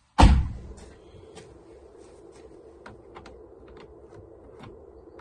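Sliding side door of a GAZ Sobol 4×4 van banging once, a loud metallic thunk that rings out briefly, followed by faint scattered clicks.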